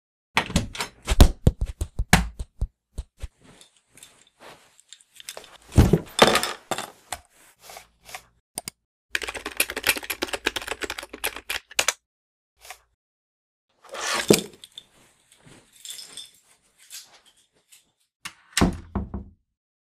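Cartoon sound effects for an animated stick figure: a run of clicks and thunks, a loud impact, and a stretch of rapid keyboard-like typing. A short cluster of clicks and knocks from a door comes near the end.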